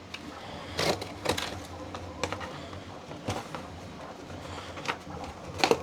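Cardboard boxes and plastic-wrapped filament spools being handled and unpacked: a string of irregular knocks, taps and crackling rustles about a second apart, over a steady low hum.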